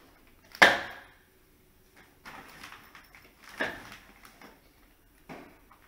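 A plastic toy bowling set in its clear vinyl carry bag being handled: a sharp knock about half a second in, then scattered rustles of the bag and softer knocks of the plastic pins.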